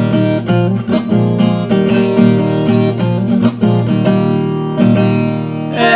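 Instrumental break in a Brazilian moda caipira song: acoustic string instruments strummed and picked, with a steady bass line under the chords.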